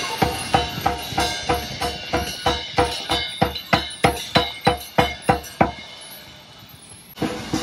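Hand drums played in a steady beat of about three strokes a second. The beat stops about six seconds in and starts again near the end.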